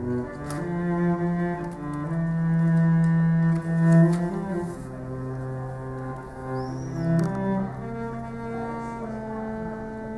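Slow melody played on a cello: long bowed notes that change every second or two.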